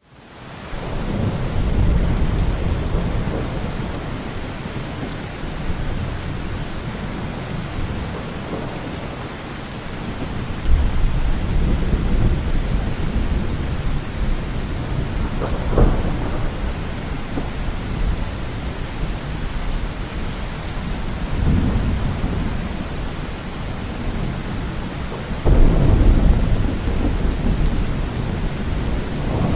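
Steady rain with thunder rumbling in several times, the heaviest rolls about a third of the way in and near the end.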